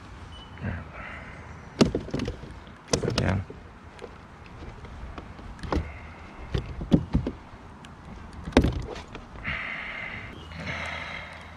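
Scattered hollow knocks and thumps on a plastic sit-on fishing kayak's hull as gear and phone are handled, several of them sharp and loud. A few short high-pitched calls come now and then in the background.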